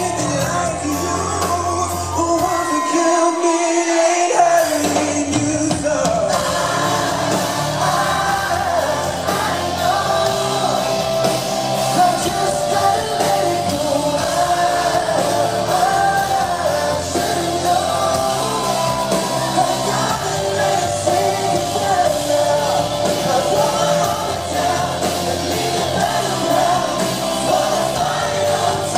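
Live pop band: a male lead singer over drums and keyboards, heard from within the audience in a large hall. The bass and drums drop out for about two seconds near the start, then the full band comes back in.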